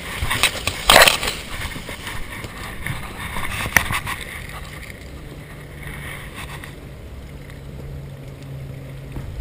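Rubbing, scraping and irregular knocks on body-worn action-camera microphones, with a sharp knock about a second in and another near four seconds. A faint steady low hum comes in during the second half.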